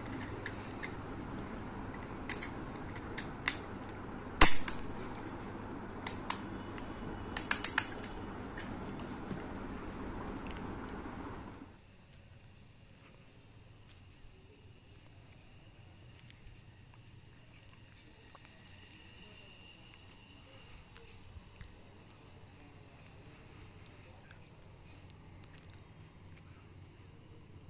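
Sharp plastic clicks and snaps of a modular bell switch being pressed and fitted into a modular switch plate, over a steady hiss; the loudest click comes about four seconds in and a quick cluster a few seconds later. Not quite halfway the hiss drops away abruptly, leaving only faint handling ticks and a steady high trill in the background.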